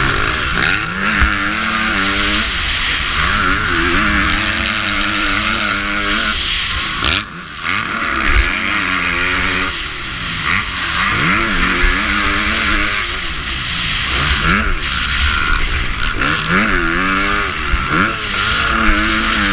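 450cc four-stroke motocross bike engine heard from an onboard camera, repeatedly revving up through the gears and backing off as it races around the track. The engine sound drops away briefly about seven seconds in.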